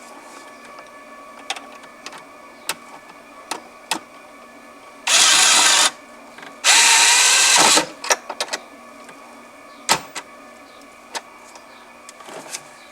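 Cordless electric screwdriver running in two short bursts, about five and seven seconds in, driving screws into dashboard trim. Light clicks and taps of plastic trim parts being handled come before and after.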